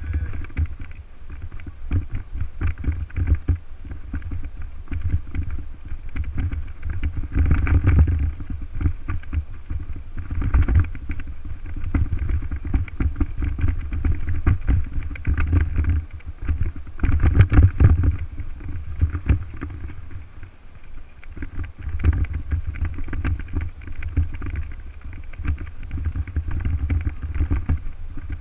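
Wind rumbling over an action camera's microphone while a mountain bike rides over a rough dirt and gravel track, with the bike and camera mount rattling throughout. The rumble swells louder twice, about 8 and 17 seconds in.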